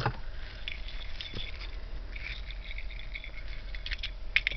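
Costume jewelry being handled: faint rustling and light clinks of metal chains and beads, with a sharper click at the start and a few quick clinks near the end.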